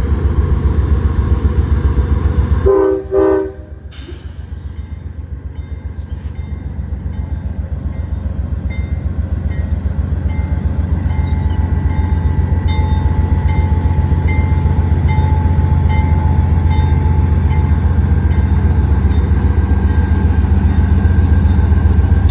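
Train locomotive rumbling past with a fast rhythmic throb, and a short horn blast about three seconds in. After the horn the rumble grows steadily louder.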